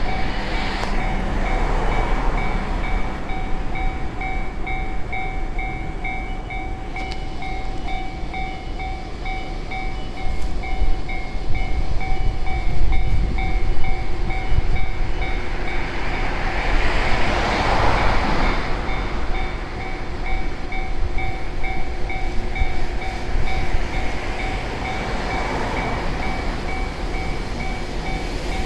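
Japanese railway level-crossing warning bell ringing a fast, even ding-ding throughout, while a train passes over the crossing, loudest about 17 to 19 seconds in.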